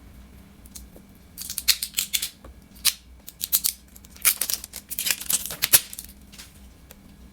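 Packaging seal being torn and peeled off a new toner bottle: quick crackly rustles and snaps in two bursts, from about a second and a half in and again from about four to six seconds in.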